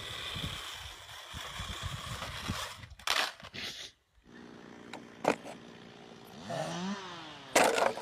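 Radio-controlled car's motor whining as it drives along a paved path, ending in a loud crash about three seconds in. After a brief silence, a few knocks and gliding pitched sounds follow, with another loud burst near the end.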